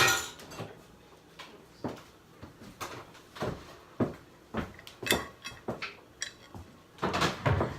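Kitchen clean-up clatter: scattered knocks and clicks of dishes, drawers and cupboard doors being handled, with a louder clatter near the end.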